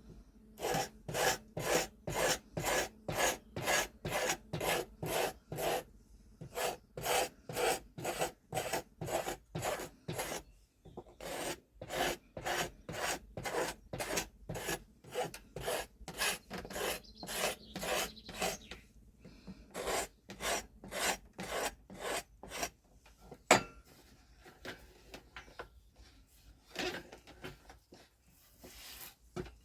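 A hand rasp or file scraping on wood in steady back-and-forth strokes, about two a second, with short pauses between runs. A single sharp knock stands out about two-thirds of the way through.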